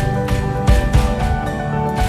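Background music with sustained tones and a steady drum beat.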